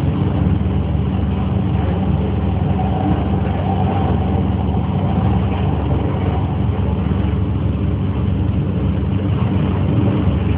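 Steady running noise inside the passenger car of an MTR K-train (Hyundai Rotem-built electric multiple unit): a constant low hum and rumble that neither starts nor stops.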